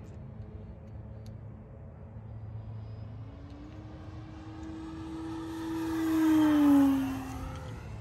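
Seagull Sport Cruiser RC model airplane making a pass: its motor and propeller note grows louder, peaks near the end, and the pitch drops as it goes by.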